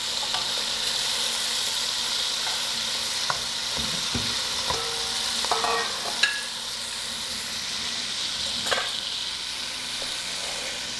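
Chunks of homemade linguiça sausage sizzling steadily as they pre-fry in fat in a metal pot. A metal spatula turning them clinks and scrapes against the pot a few times in the middle and once more near the end.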